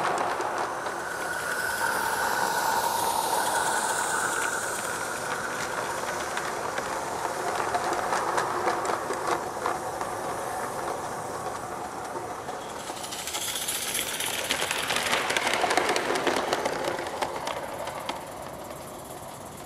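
G scale live steam locomotive hauling wagons along garden track: a steady run of small wheel clicks over the rail joints. It grows louder about two-thirds of the way through, then fades as the train moves away.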